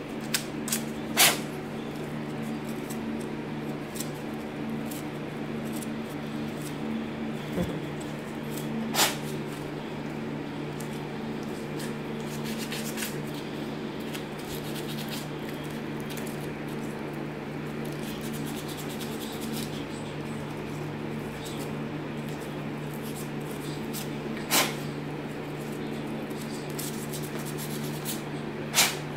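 A small white slingshot frame being cleaned up by hand: faint scratchy rubbing and scraping, with four sharp clicks spread through it. Under it runs a steady low hum.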